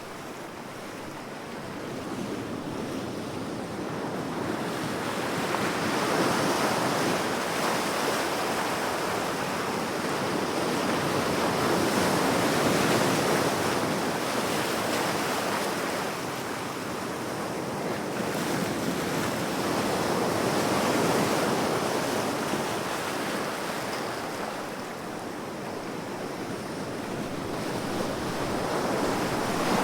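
Ocean waves washing onto a shore as a continuous surf, swelling and ebbing slowly, with a fresh wave building roughly every seven or eight seconds.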